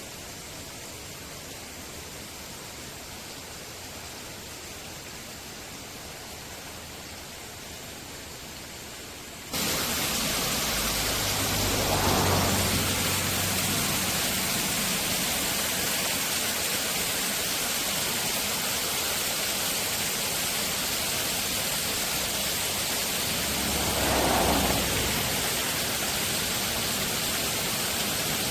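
Steady rush of a mountain stream, which suddenly gets louder about a third of the way in. Two brief swells with a low rumble come after the jump, one shortly after it and one near the end.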